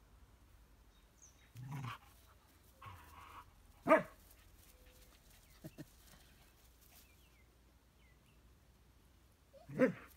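Dog barking in short sharp barks: a loud one about four seconds in and another near the end, with softer sounds shortly before the first.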